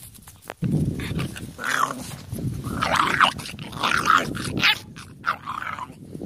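Pit bull puppy growling in several bouts, with high-pitched yips over the growls, starting about half a second in.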